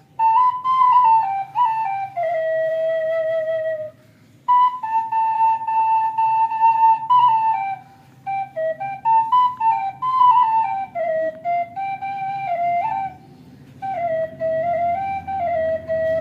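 Wooden flute playing a slow melody of held notes and small stepwise turns, phrased with short breath pauses about four, eight and thirteen seconds in.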